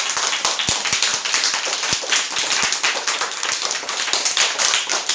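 A group of children clapping: many overlapping hand claps in a steady round of applause.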